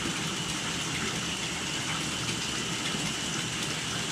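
Water running steadily from the tap into a bathtub as it fills.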